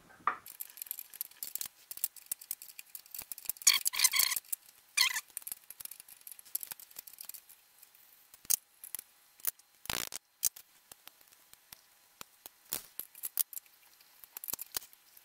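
Small metal clicks and scraping of a nut driver turning on a paint-covered nut on a speaker's woofer mounting bolt, with a burst of scraping about four seconds in and a sharp click about ten seconds in. The nut won't loosen; the whole bolt probably turns with it.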